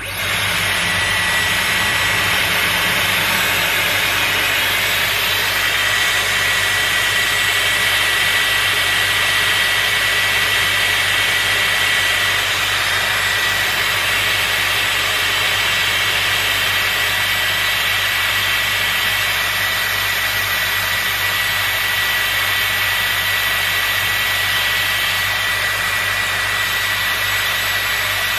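Dyson Airwrap hair styler running: a steady rush of air through the curling barrel with a thin, steady high whine. It comes on at the very start and runs evenly while a section of hair is wound and dried.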